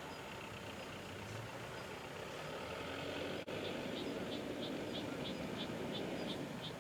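Steady outdoor background rumble like distant traffic. About halfway in, a high, short chirp begins repeating about three times a second.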